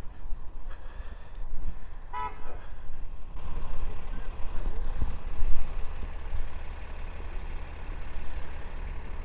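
Road traffic in a snowstorm, with a car horn giving one short toot about two seconds in. Under it runs a steady low rumble of vehicles and wind on the microphone.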